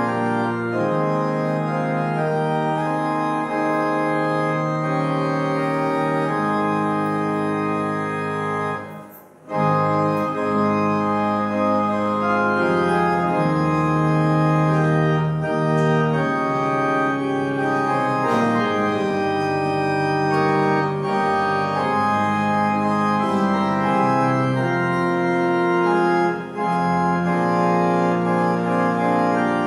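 Organ playing slow, held chords, with a brief pause about nine seconds in before the music carries on.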